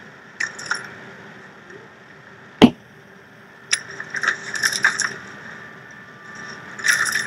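Quiet TV-drama soundtrack with scattered small clicks and clinks and one sharp knock about two and a half seconds in.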